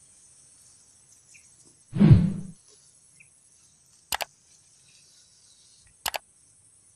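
A baited hook and line plops into shallow swamp water about two seconds in, the loudest sound, over a faint steady high insect drone. Later come two quick double clicks from a subscribe-button animation's cursor.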